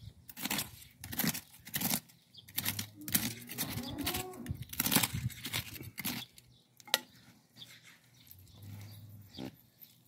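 Small metal hand trowel scraping and chopping into dry, crumbly soil as a planting hole is dug, in a run of short strokes that are busiest in the first six seconds. A single sharp click comes about seven seconds in.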